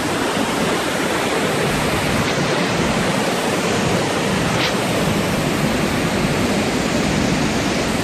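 Large waterfall in full spate: a steady, loud rush of falling and churning water. The river is at its highest level, with a high flow.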